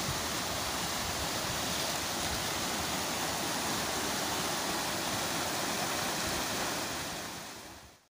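Small mountain stream rushing and splashing over boulders, a steady rush of water that fades out near the end.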